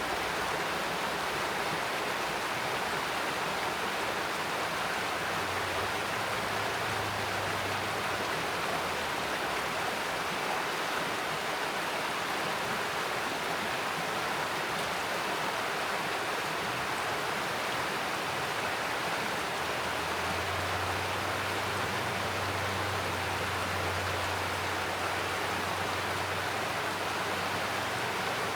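Mountain stream flowing, a steady, constant rush of water.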